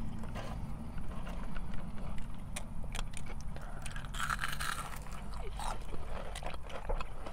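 Close-up eating sounds: a fried onion ring is bitten into with a crunch about four seconds in, then chewed, with scattered small mouth clicks. Under it runs a low steady rumble.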